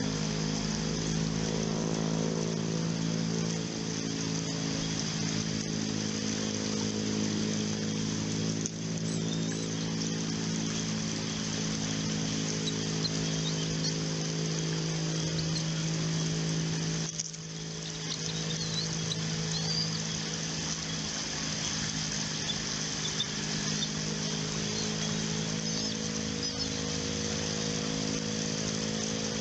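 A steady mechanical drone holding several even tones, briefly dipping in level partway through.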